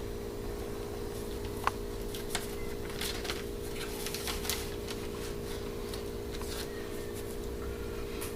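Light rustling and small clicks from a 45 rpm record and its paper sleeve being handled, over a steady low hum.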